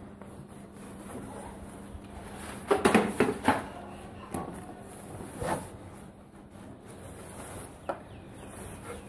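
Fabric motorcycle cover being pulled off a bike and bunched up by hand: rustling and crumpling cloth in short bursts, loudest about three seconds in.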